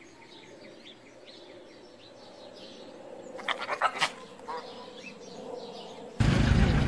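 Birds chirping faintly in the background, with a short burst of loud calls about halfway through. Near the end the sound jumps abruptly to loud rumbling noise.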